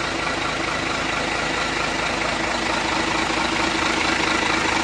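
Freshly rebuilt Hino J08E inline-six diesel engine idling steadily, running very smooth with no knocking.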